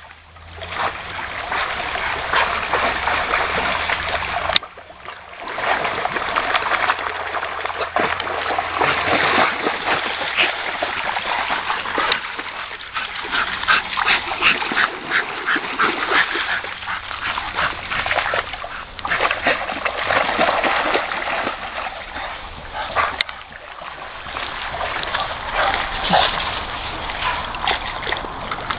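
Pit bull dogs splashing and playing in water, a continuous churn of splashes with many short sharp strokes, broken off briefly about four and a half seconds in.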